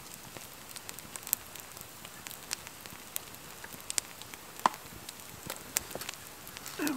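Campfire crackling: irregular sharp pops and snaps over a faint hiss.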